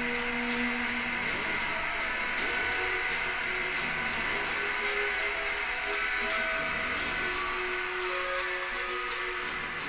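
Two electric guitars playing together through a small amp: one strums chords in a steady rhythm of about three strokes a second while the other holds single notes that change pitch every second or so.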